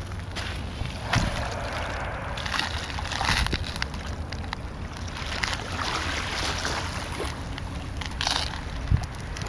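Wind blowing across the microphone at the waterside: a steady low rumble with hissing gusts that swell and fade every second or two, and a soft bump near the end.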